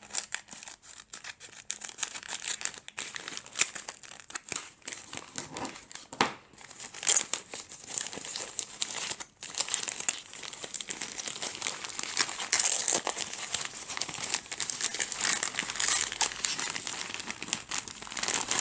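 Crinkly packaging being cut open and unwrapped by hand: irregular crackling and rustling, with brief tearing sounds.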